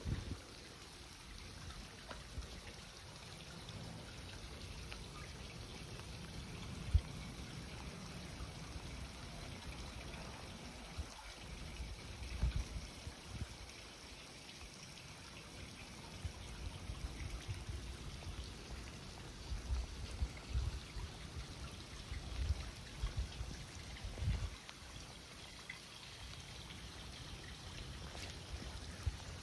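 Water from a road snow-melting sprinkler system running and trickling over wet asphalt: a steady, faint splashing hiss, with occasional low thumps.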